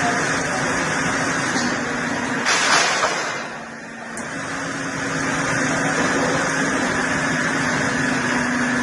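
A heavy machine's engine running steadily with a constant low hum. About two and a half seconds in there is a short, louder rushing burst, and around four seconds the level briefly dips.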